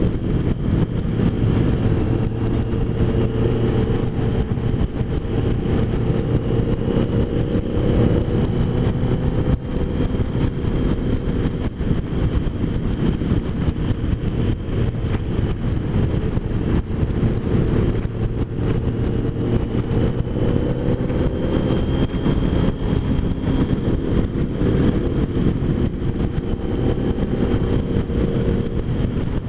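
Kawasaki motorcycle engine running at a steady cruise, heard from the rider's seat over wind and road noise. Its pitch rises and falls gently a couple of times.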